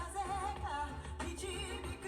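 Female vocalist singing a slow ballad with vibrato on held notes, over a steady low accompaniment.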